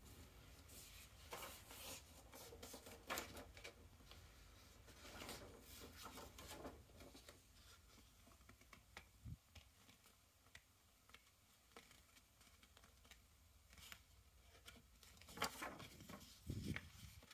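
Faint rustling of a sheet of printed paper being picked up and handled, in short irregular bursts with quieter stretches between, the loudest near the end.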